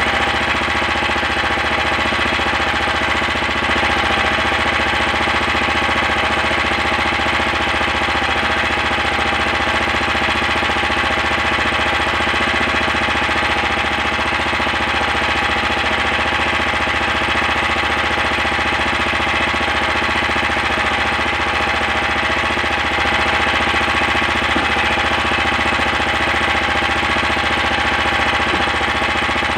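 Small boat engine running steadily at one constant speed, with no change in pitch or level.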